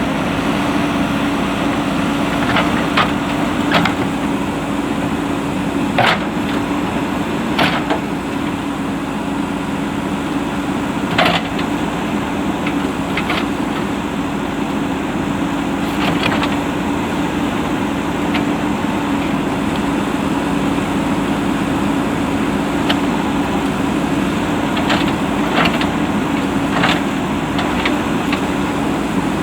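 JCB 3DX backhoe loader's diesel engine running steadily under work, with sharp knocks and cracks a dozen or so times at irregular intervals.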